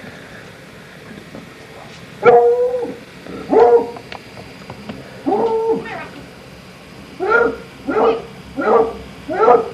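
A dog barking: three spaced barks, the third drawn out, then a quicker run of about four barks near the end.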